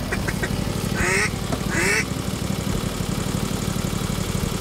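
A quick run of short ticks, then two loud duck quacks about one and two seconds in, over the steady drone of an idling engine.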